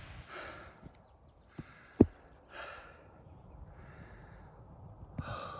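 A hiker breathing hard while walking uphill, with about five heavy breaths roughly a second apart. There is one sharp knock about two seconds in.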